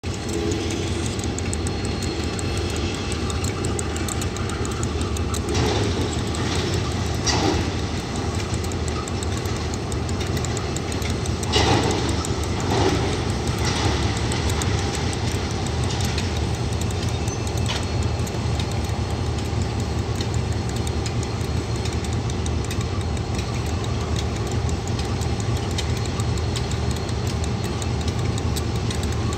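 KiwiRail DX class diesel-electric locomotive idling with a steady low rumble as it turns slowly on a turntable, with a few short louder sounds about six and twelve seconds in.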